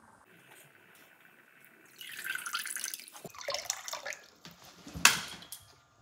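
Water splashing and pouring back into a plastic tub as a soaked wad of tissue paper is lifted out of it, then one sharp, loud wet splat about five seconds in as the sodden wad hits a wall.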